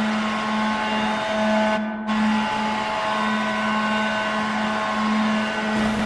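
Victoria Salmon Kings' 2009 arena goal horn sounding a long, steady, low blast, with a brief dip about two seconds in.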